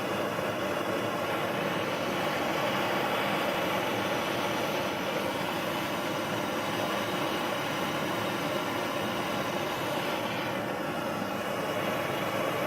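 Gas torch flame running steadily as a continuous rushing noise, heating a steel bolt-cutter handle toward cherry red before it is bent.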